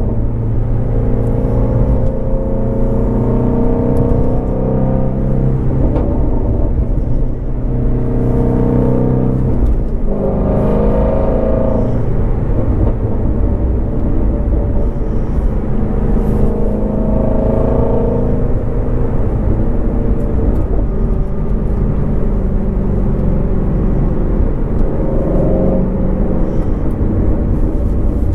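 A 2019 Shelby GT350R's 5.2-litre flat-plane-crank V8 running while the car is driven, the engine and exhaust note steady and loud. The pitch changes several times with the throttle, most sharply about ten seconds in.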